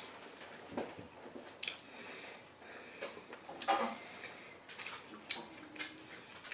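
Quiet eating sounds: chewing and small mouth noises, with a few light clicks of a metal knife and fork against a plate. A short hum from the eater comes just past halfway.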